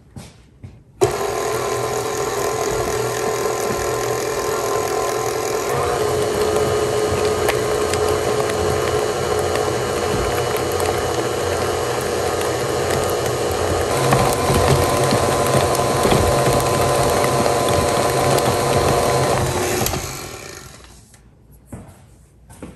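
KitchenAid Classic Plus stand mixer's motor starting abruptly about a second in and running with a steady whine as the flat beater churns a thick mixture in the steel bowl. Its pitch shifts twice as the speed lever is moved, running louder after the second change, then it is switched off and spins down near the end.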